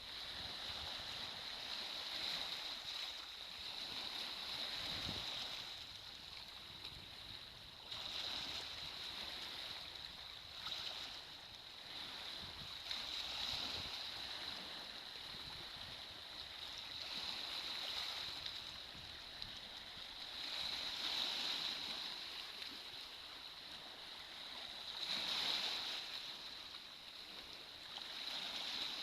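Small waves washing onto a beach: a steady hiss that swells and eases every few seconds.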